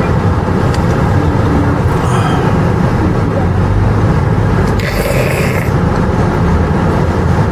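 Car engine and cabin noise heard from inside the car, a steady low rumble as the car pulls forward at low speed. A brief hiss sounds about five seconds in.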